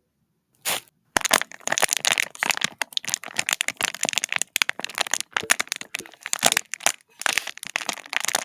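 Foley crackling and crunching: after a brief silence and one short burst, a fast, dense run of sharp cracks and crunches starts about a second in and keeps going.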